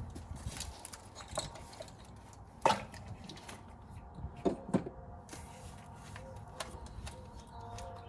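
Light metallic clinks and knocks of hand tools working around the engine bay during spark plug removal. The sharpest comes about a third of the way in, and two more follow close together just past the middle.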